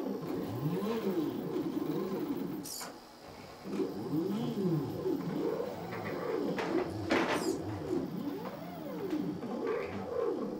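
Stepper motors of a 3D-printed robot arm whining, each pitch rising and then falling as the motors speed up and slow down through a move. There is a brief pause about three seconds in, and two short high-pitched hisses, one near the pause and one about seven seconds in.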